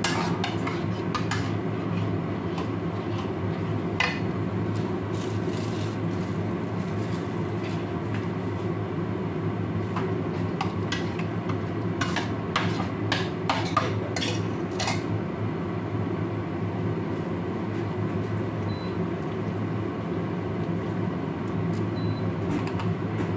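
Spatula scraping and tapping against a stainless steel frying pan while the liquid in it is stirred, in scattered strokes that come thickest between about ten and fifteen seconds in. A steady low hum runs underneath.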